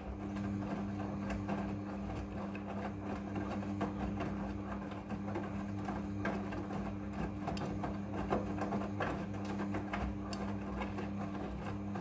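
Midea front-loading washing machine washing: a steady motor hum with many soft, irregular knocks as the drum lifts and drops the wet clothes.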